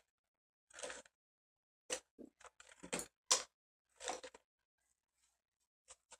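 A string of short scratchy rustles and crackles from painting supplies being handled on a table, in irregular clusters, the loudest about three seconds in.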